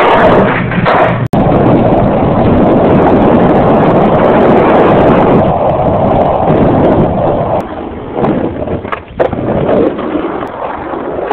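Skateboard wheels rolling over rough, cracked concrete, heard close to the board: a loud, steady rumble that eases off about two-thirds of the way in, followed by a couple of sharp clacks of the board.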